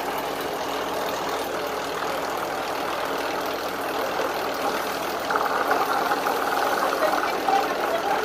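Mountain coaster cart's wheels rolling along the metal monorail track, a steady rolling whir that grows louder about five seconds in as the cart approaches.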